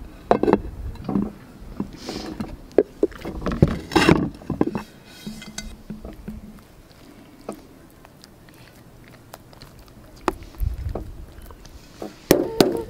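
Glazed clay bowls knocking and scraping against each other and against a tiled tabletop as they are handled and turned over. Scattered clunks and taps come thickest in the first few seconds and again near the end, with softer handling noise in between.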